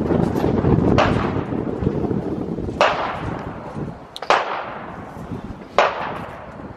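Four gunshots, each a sharp crack trailing off in an echo, roughly a second and a half apart.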